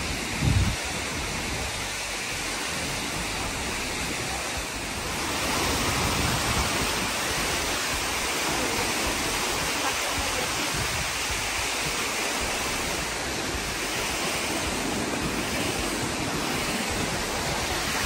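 Steady rush of the Seven Falls waterfall cascading down the rock, a little louder from about five seconds in. A brief low thump comes just after the start.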